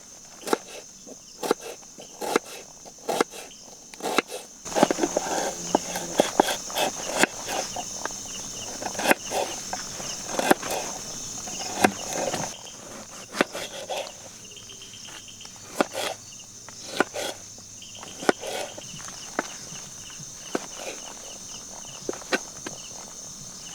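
Wood campfire crackling with scattered sharp pops, busier and louder for several seconds in the first half. A steady high-pitched drone of insects runs underneath.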